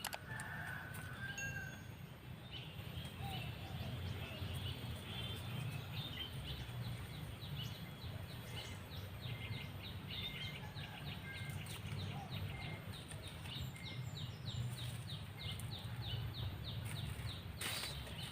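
Outdoor ambience of birds chirping, with a rapid, even series of short high notes, about four a second, through the middle, over a steady low rumble.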